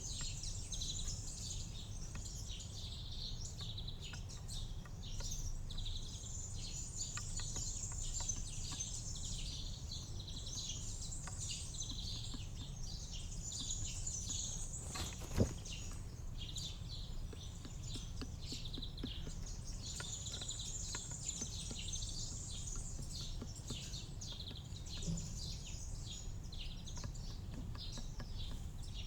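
Many small birds chirping and singing without pause over a steady low background rumble, with one sharp click about halfway through.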